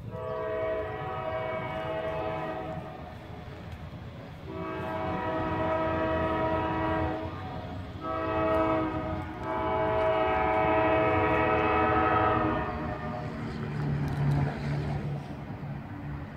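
Diesel locomotive horn on an approaching CSX freight train sounding the grade-crossing signal: two long blasts, a short one, then a long one, each a chord of several notes. Near the end the horn stops and the low engine sound of the approaching locomotives comes in.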